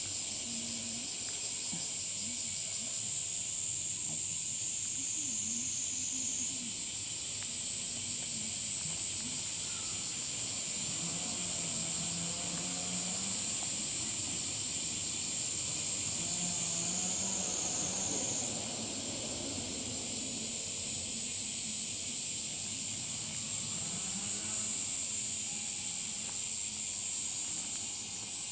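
A continuous, high-pitched insect drone whose pitch shifts twice, with faint wavering low sounds beneath.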